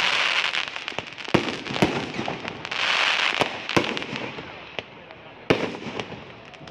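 Consumer fireworks going off: a string of sharp bangs, about eight in all, with two spells of crackling hiss from bursting shells, one at the start and one around three seconds in.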